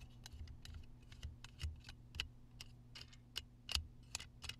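Wing nut being spun loose by hand on the threaded hook that holds a 2017 Chevy Silverado's stowed jack, giving a run of irregular light clicks and ticks, about three to five a second.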